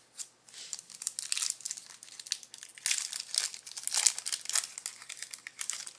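Wrapper of a football trading-card pack crinkling and crackling as it is torn open by hand, starting about half a second in.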